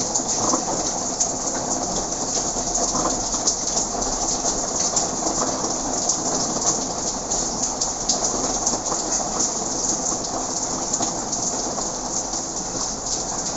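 Steady light rain, a drizzle pattering on surfaces with many small drops.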